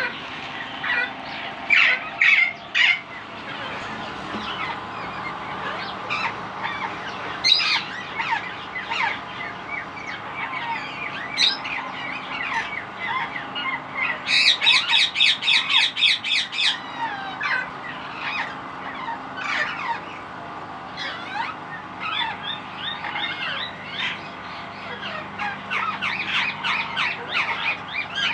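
Indian ringneck parakeets calling and chattering, many short chirps overlapping, with a run of rapid, harsh, repeated squawks about halfway through.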